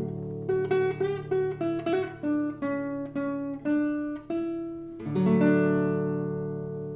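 Nylon-string classical guitar played fingerstyle: a held bass note under a descending run of single plucked notes, then a new chord plucked about five seconds in and left to ring and fade.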